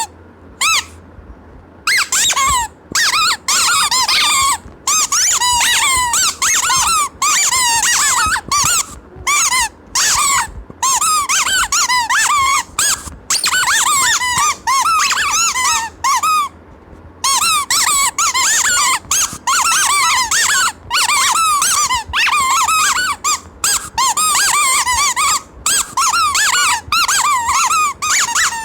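Baby's squeaky toy squeezed over and over, giving quick high squeaks that rise and fall in pitch, in rapid runs with short pauses between them.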